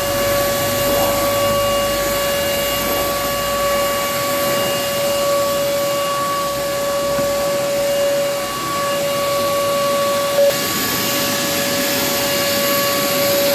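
Canister vacuum cleaner running steadily with a constant motor whine, its floor tool worked over pile carpet. A short click about ten and a half seconds in.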